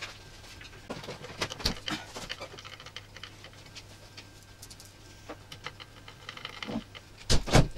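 Scattered light clicks and taps of computer hardware being handled in a PC case while a hard drive is fitted, with a louder dull knock near the end.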